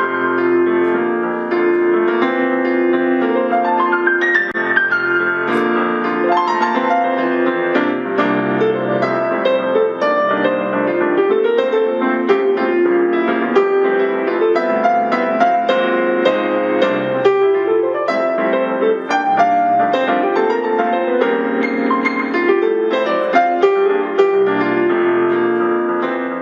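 Solo piano music: sustained chords with a melody moving above them. It begins abruptly and cuts off near the end.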